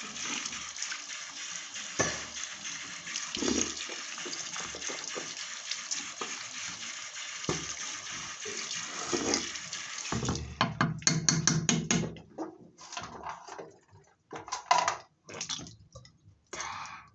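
Water running steadily from a tap for about ten seconds, then shut off, followed by scattered knocks and handling clatter.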